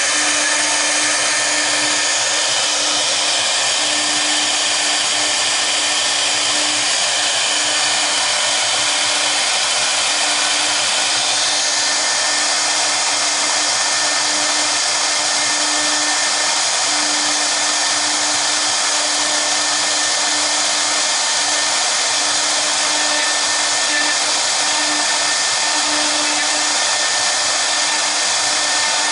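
Two CNC router spindles running at speed while their V-bits engrave a board together: a steady whine with the hiss of cutting, unbroken throughout.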